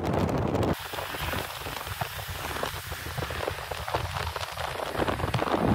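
Rain pattering: an even hiss crowded with small ticks. Under a second in it cuts in abruptly, replacing a low rumble of wind and road noise from a moving car.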